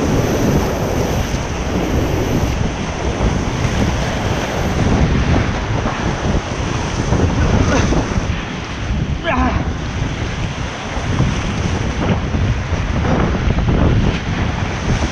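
Whitewater rapids rushing loudly around an inflatable kayak, with the paddle splashing into the waves now and then and wind buffeting the microphone.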